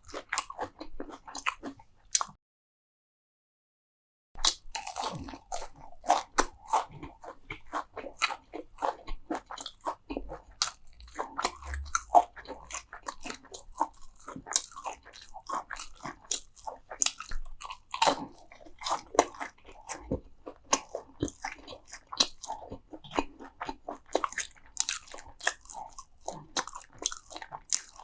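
Close-miked biting and chewing of crunchy food: many sharp crunches in quick, irregular succession, broken by about two seconds of dead silence shortly after the start.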